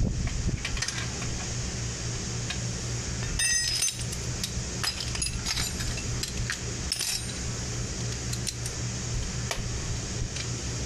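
Wrench clinking against the motorcycle exhaust's mounting bracket and bolts: scattered light metallic clicks, with a short ringing clink about three and a half seconds in, over a steady low hum.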